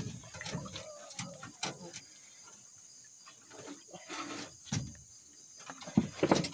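Scattered knocks and thumps of gear being handled in a boat, with a quieter stretch in the middle and the loudest thumps about six seconds in.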